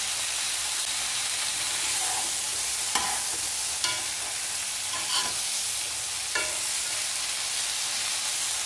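Mixed vegetables sizzling in oil in a nonstick wok as they are stir-fried with a wooden spatula and a metal spoon: a steady hiss, with four short clinks of the utensils against the pan in the middle.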